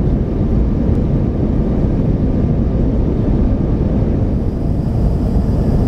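Steady low rumble inside an Airbus A350 cabin during descent on approach: airflow and engine noise.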